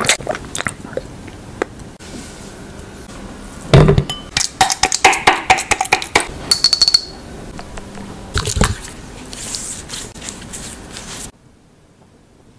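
A steel utensil clinking and knocking against a drinking glass as avocado is mashed in it: a heavy knock about four seconds in, then a quick run of sharp clinks and another knock a few seconds later.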